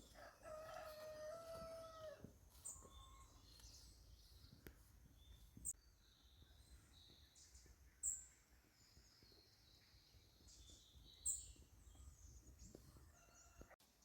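A rooster crows once, faintly, in a single held call of about two seconds near the start. Scattered short, high chirps of small birds follow, the loudest about eight and eleven seconds in.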